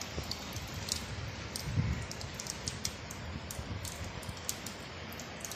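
Rain and water dripping from a roof: a steady hiss scattered with sharp drip ticks, with a brief low rumble about two seconds in.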